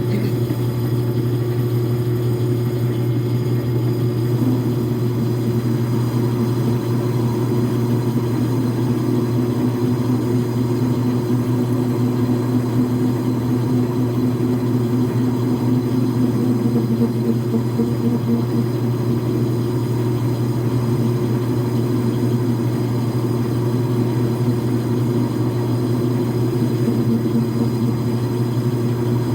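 Logan metal lathe running steadily with a low hum, the parting tool cutting into the spinning workpiece.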